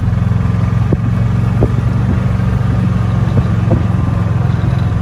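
Golf cart driving along at steady speed: a steady low rumble of motor and road noise, with a few light knocks.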